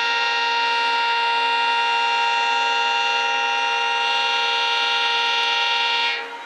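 Indian Railways diesel locomotive's air horn sounding one long, steady blast of several notes together, cutting off near the end.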